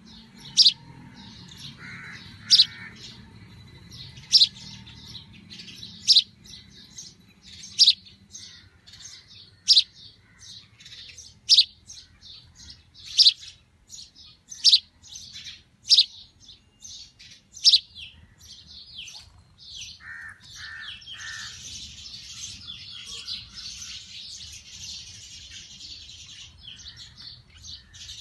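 Young sparrow chirping: single sharp, loud chirps about every second and a half to two seconds, then from about twenty seconds in a quicker, denser chatter of softer chirps.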